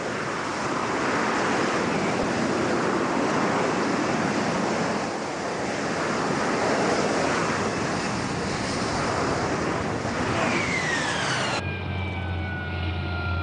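AV-8B Harrier's Rolls-Royce Pegasus jet engine at full power, a steady dense roar from its lift jets while the jet hovers. Near the end it cuts to a quieter jet whine with tones slowly falling in pitch over a low hum.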